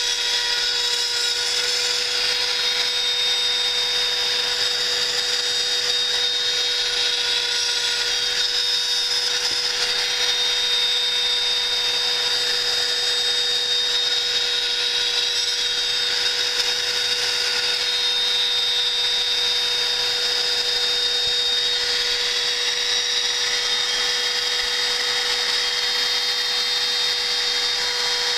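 CNC router spindle running with a steady whine, its small end mill milling slots in aluminium plate with a continuous cutting hiss.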